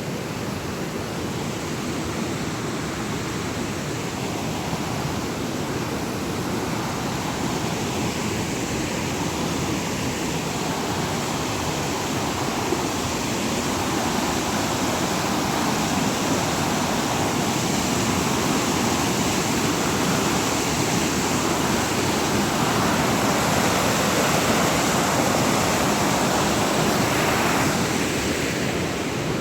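Rushing water: a steady, loud wash of water pouring over rocks, growing a little louder past the middle.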